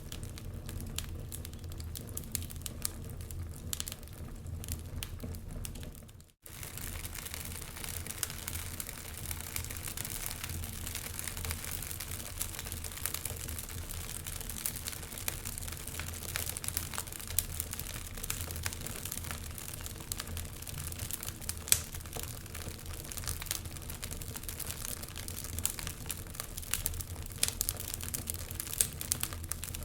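Wood fire crackling and popping in a fireplace, with many irregular small snaps over a steady low rumble. The sound cuts out for a moment about six seconds in, then resumes with more hiss in the highs.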